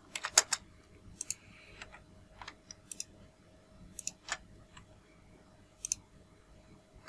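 Computer mouse and keyboard clicks: a quick run of four or five clicks at the start, then single or paired clicks every second or so, over a faint steady hum.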